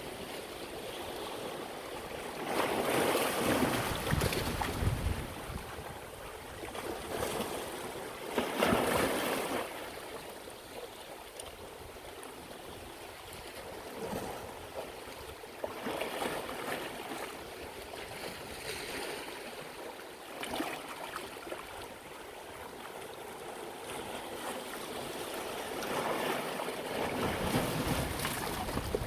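Sea waves washing onto the shore, the wash swelling and falling back in several surges, the strongest ones about three seconds in, around nine seconds in and near the end.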